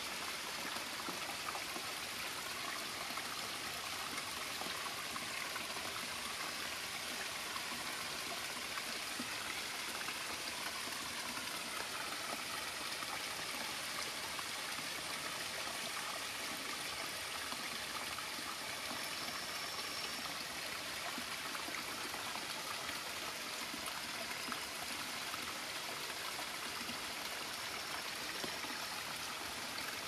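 Shallow mountain stream running and trickling over rocks: an even, steady rush of water with no change in level.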